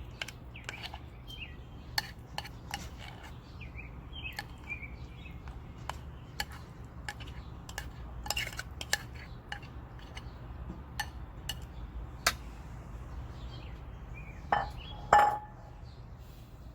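Spoon scraping and tapping against a mixing bowl as thick cornstarch slime is scraped out, with scattered clicks and light clinks. Two louder clanks come near the end, the second ringing briefly.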